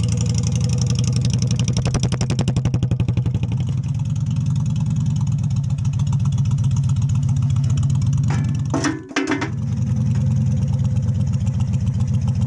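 V-twin cruiser motorcycle engine running steadily with an even low pulsing, with a brief dropout about nine seconds in.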